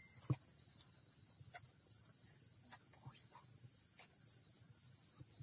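Steady high-pitched chorus of insects chirring, with a few faint clicks and rustles.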